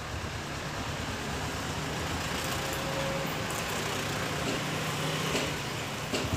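Steady low background rumble, with a few faint clicks.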